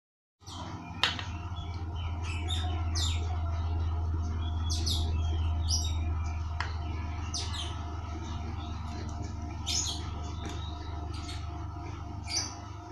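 Small birds chirping in short, high-pitched calls scattered through, over a steady low hum, with a sharp click about a second in.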